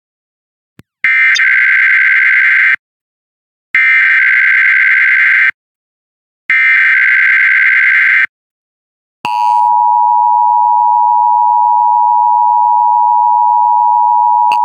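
Emergency Alert System SAME header: three bursts of digital data tones, each under two seconds, with short gaps between them. About nine seconds in, the steady EAS attention tone starts, announcing the coordinated monthly test.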